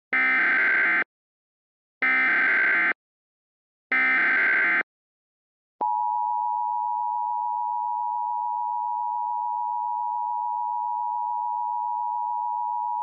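Emergency Alert System header: three bursts of SAME data tones, each about a second long and two seconds apart. About six seconds in, the steady two-tone EAS attention signal follows, announcing that an emergency alert message is about to be read.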